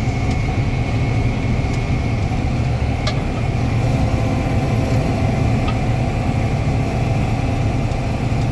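Combine harvester running steadily, heard from inside the cab: a constant low engine and machinery drone with a faint steady high whine, and a light click about three seconds in.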